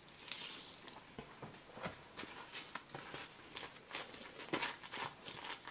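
Paper pages in clear plastic sheet protectors being lifted and turned over, a faint, irregular series of rustles and light crinkles.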